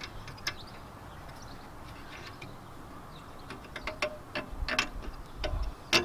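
Light metallic clicks and taps, scattered through the second half, as the steel anti-rattle spring clip is pressed and levered into place on the rear brake caliper.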